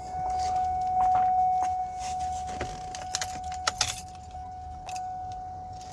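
Car keys jangling, with a series of sharp clicks, over a steady high-pitched tone.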